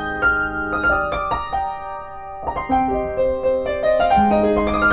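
Background piano music: a light melody of single struck notes over held low notes.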